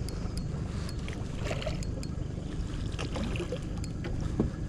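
Boat motor running steadily with light splashing and small knocks as a hooked walleye is brought to a landing net at the side of the boat.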